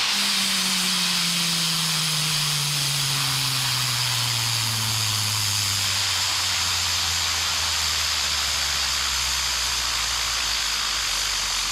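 Compressed air hissing steadily from an air-compressor blow nozzle held to a spinning toy gyroscope, while the rotor's hum falls slowly and steadily in pitch as the gyroscope is slowed down.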